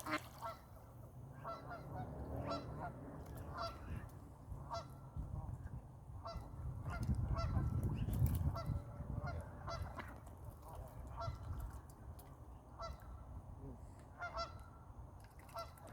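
Ducks fighting and calling, short nasal calls repeated many times at irregular intervals. A low rumble swells in the middle and is the loudest part.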